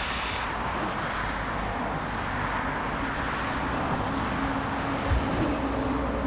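Steady roar of jet airliner engines at the airport, with gusty wind buffeting the microphone and a low thump about five seconds in.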